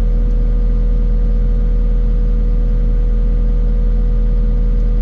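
Diesel engine of a new Cat 255 skid steer running steadily at a constant speed, heard from inside the cab. It makes a deep, even hum with a steady whine above it.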